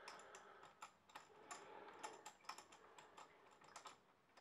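Faint, irregular light metal clicks of a spark plug tool being turned by hand as an old plug is unscrewed from a Suzuki Bandit 1200's cylinder head.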